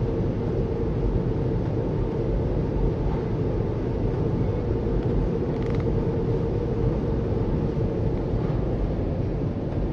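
Tunnel car wash heard from inside the car: water spray hitting the windshield and body over the steady rumble and hum of the wash machinery.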